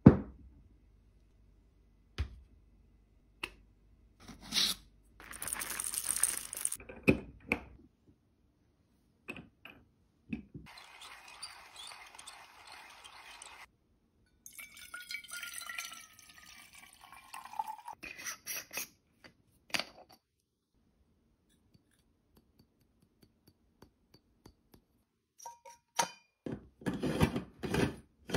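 Water poured from a jug into the base of a stainless-steel moka pot in two stretches, the second with a tone that falls as it goes, amid scattered clicks and knocks of handling. About five seconds in there is a couple of seconds of dry hiss, and near the end a burst of metal clinks and scraping as the pot is put together.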